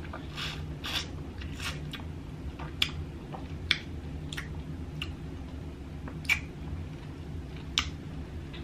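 A person chewing seafood-boil shrimp and smacking her lips, with short wet mouth smacks about once a second.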